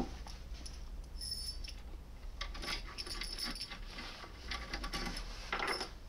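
Metal keys and a steel lock-pick tool clinking and jingling as they are handled and laid on the table, in three clusters of light clicks with short metallic rings.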